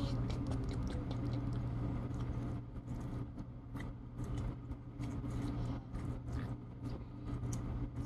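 Slime being squeezed and stretched by hand, making a rapid, irregular run of small clicks and pops.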